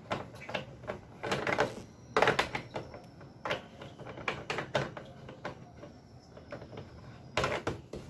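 Plastic mounting knob being screwed tight by hand onto a Vortex floor fan's side arm, with irregular clicks and knocks from the plastic fan housing.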